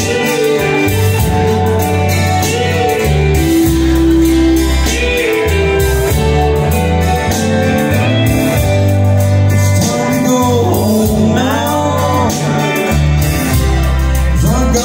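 A slow song: a voice singing over guitar and a steady bass line.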